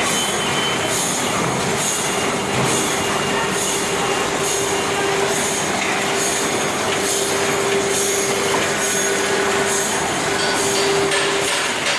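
ÖZ1000 liquid-and-powder filling machine running: a steady mechanical clatter with a constant humming tone, and a short high hiss repeating about once a second in time with its working cycle.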